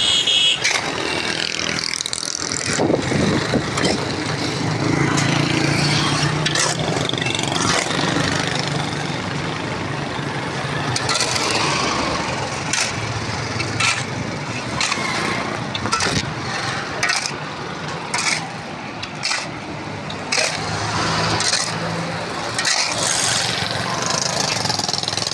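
A shovel scraping and chopping through a heap of gravel and cement on a paved road as the mix is turned, in short scrapes and knocks. Motor vehicle engines run in the street behind it, louder now and then.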